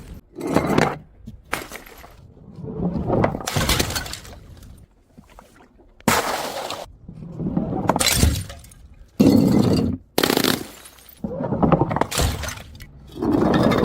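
Glass bottles smashing one after another: about ten separate crashes of breaking, shattering glass.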